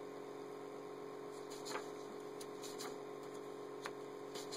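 Pages of a paperback workbook being turned by hand: a few faint rustles and ticks of paper over a steady low hum.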